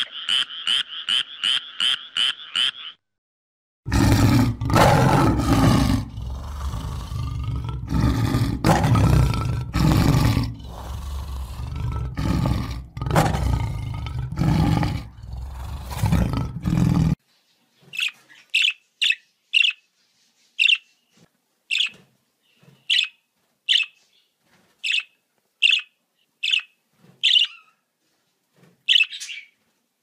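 A frog croaking in a rapid pulsed series, about four pulses a second, which stops about three seconds in. After a short gap a lion roars and growls loudly for about thirteen seconds. After another gap come budgerigar chirps: short, high and about one a second.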